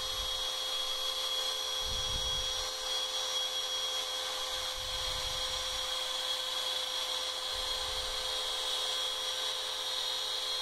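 DeWalt DW660 cutout-tool spindle on a Shapeoko 2 CNC router running with a steady high whine as its straight-flute end mill cuts the outline of a thin wooden part. A vacuum hose held at the cutter draws up the sawdust alongside.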